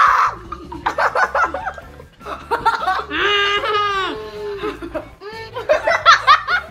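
A group of children laughing, with background music underneath.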